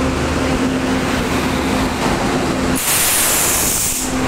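Indian Railways WAP-7 electric locomotive rolling past with a steady hum. About three seconds in, a loud burst of hissing air lasts about a second.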